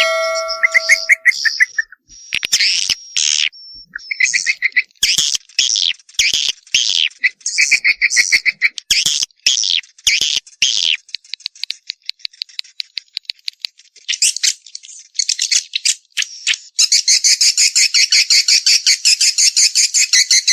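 Recorded swiftlet calls of the kind played to lure swiftlets into a nesting house: rapid chirps and fast buzzing rattles in quick succession, merging into one continuous rattling trill near the end.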